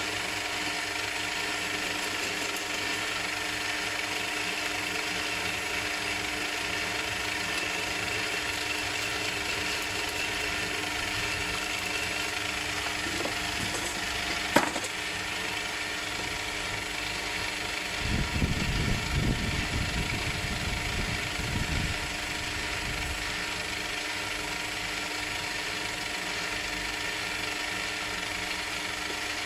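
Metal lathe running, with the steady whirr of its motor and gear train. A sharp click comes about halfway through, and a rougher, louder rumble lasts a few seconds after that.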